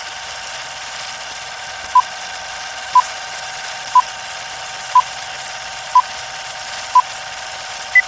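Steady static hiss with short electronic beeps, six of the same pitch exactly a second apart, then a seventh at a higher pitch a second later, like a countdown or time-signal sequence.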